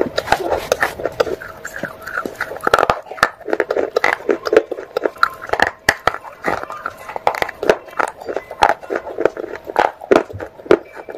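Pieces of wet baked clay pot being bitten and chewed close to the microphone: many sharp, irregular crunches, several a second.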